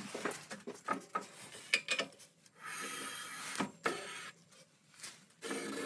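Bicycle front wheel being handled and spun in a truing stand while it is checked for true. Scattered light clicks and knocks, and a steady rushing noise lasting about a second, starting about two and a half seconds in, with a shorter one near the end.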